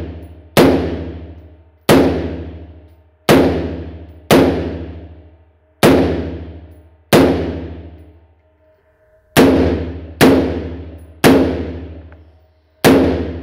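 AR-15-style rifle firing single shots at an uneven pace of one every one to two seconds, about ten in all. Each shot is a sharp crack followed by a long echoing decay in the indoor range.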